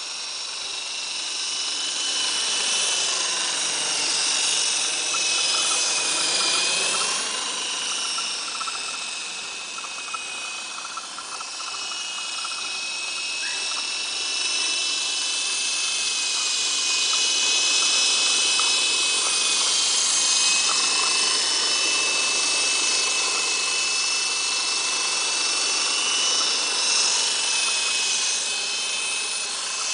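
Electric motors and coaxial twin rotors of an Esky Big Lama RC helicopter whining in flight. The pitch of the whine dips and recovers now and then, and the sound grows louder and softer as the helicopter moves about.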